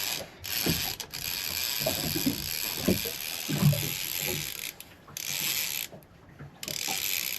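Fishing reel being cranked with a whirring, ratcheting gear sound as a hooked fish is wound in. The winding stops briefly twice near the middle.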